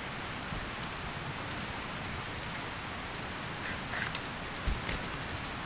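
Steady outdoor hiss with a few faint, short clicks and knocks of wooden branches being handled and set in place.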